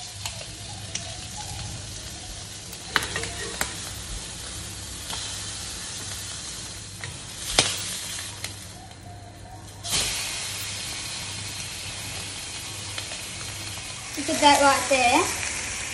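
Battered queenfish fillets frying in oil in a black frying pan: a steady sizzle, with a few sharp scrapes and knocks of a wooden spatula as the fish is worked in the pan. The sizzle drops out for about a second around nine seconds in.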